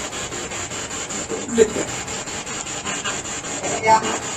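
SB7 spirit box sweeping through radio stations: a rapid, choppy hiss of static broken into short, evenly spaced pulses, with a few brief snatches of broadcast sound.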